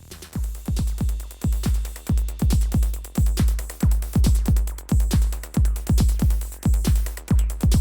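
Electronic breakbeat/electro dance music from a DJ set. Deep, heavy kick drums drop in pitch with each hit, in an uneven, broken-beat rhythm.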